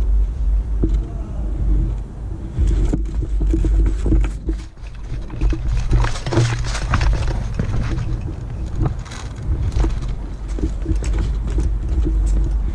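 Airsoft guns firing in irregular sharp snaps over a heavy low rumble of wind and handling noise on the microphone.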